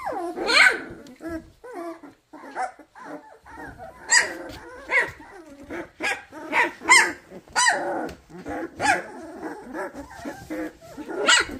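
Two-and-a-half-week-old Vizsla puppies crying: short high-pitched squeals and yelps, about one a second, over softer, lower whining and grunting from the litter.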